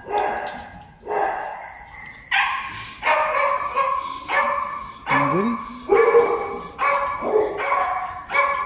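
Dog barking over and over, about a bark a second, each bark echoing in a hard-walled shelter kennel.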